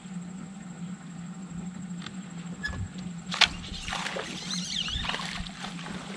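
A hooked fish splashing at the surface as it is reeled in to the boat, beginning just after a sharp snap about three and a half seconds in. A steady low hum runs under it, typical of an electric trolling motor.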